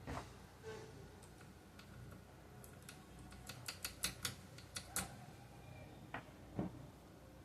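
Light clicks and taps from the parts of a jammed Elgin sewing machine being handled during repair: a quick run of about a dozen sharp clicks in the middle, then a couple of duller knocks near the end.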